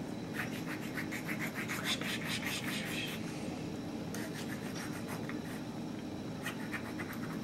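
Small hand-twisted herb grinder crushing dried rose petals and sage: a rapid, scratchy clicking for a couple of seconds, then again briefly near the end.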